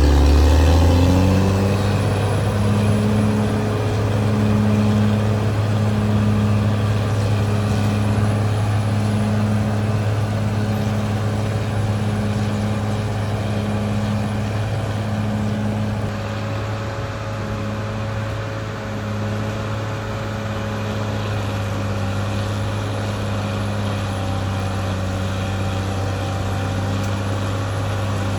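Caterpillar D6R XL bulldozer's diesel engine running steadily. Its note rises right at the start, then holds an even low hum.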